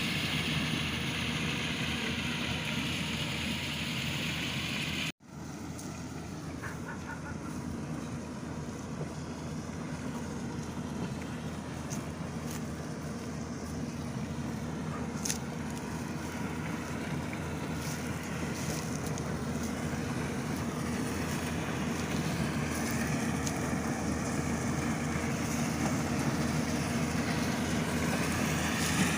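Yanmar AW-70V harvester running steadily. The sound cuts out sharply for an instant about five seconds in, then carries on, growing slowly louder toward the end.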